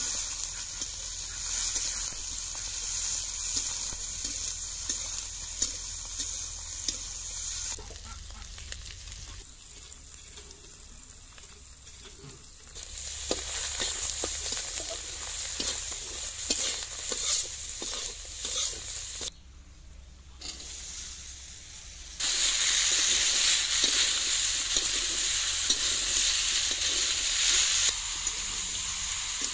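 Oil sizzling in an iron kadai as freshwater mussel meat is stir-fried, with a metal spatula scraping and clinking against the pan. The sizzle has quieter stretches and is louder in the last third.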